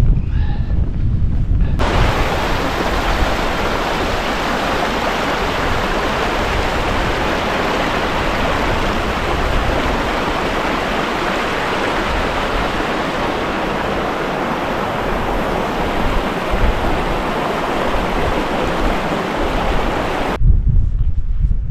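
Steady, dense rush of running water, such as a fell stream, that cuts in about two seconds in and cuts out a second before the end. Low wind buffeting on the microphone comes before and after it.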